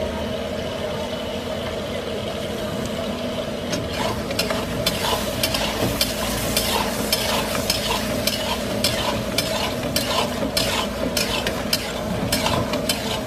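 Mutton sizzling and frying in a metal karahi while a spoon stirs it. From about four seconds in, the spoon scrapes and knocks against the pan about twice a second.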